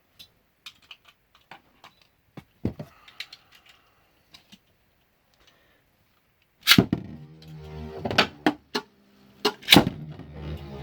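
Small plastic clicks and taps as Beyblade launchers are reloaded. About two-thirds of the way in, the Beyblade tops are launched into a plastic stadium: a loud snap, then a steady spinning whir with several sharp clacks as the tops strike.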